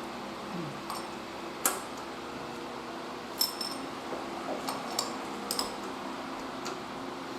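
Irregular metallic clinks and taps of hand tools, a socket wrench on a spark plug, some with a brief high ring, over a steady low hum.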